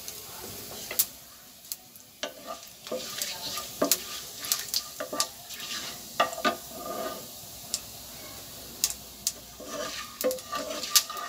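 Cumin seeds and a bay leaf sizzling in hot oil in a non-stick pan, stirred with a wooden spatula, with frequent irregular sharp clicks and taps over a faint hiss.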